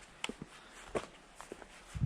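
A hiker's footsteps on a trail: a few short, sharp steps spaced about half a second apart.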